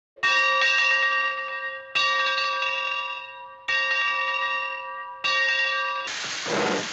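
A bell struck four times, about every second and a half to two seconds, each strike ringing on with several clear tones and fading before the next. About six seconds in, a loud steady hiss takes over.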